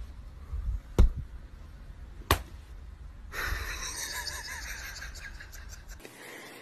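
Two sharp slaps about a second apart, a hand slapping a woven floor mat, followed by a few seconds of soft hiss with faint squeaks.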